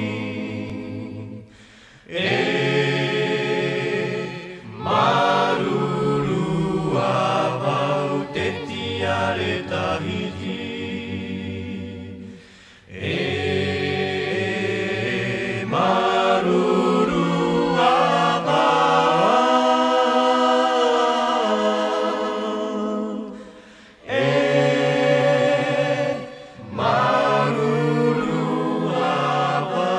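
A choir singing in long phrases, largely unaccompanied, with short pauses between phrases.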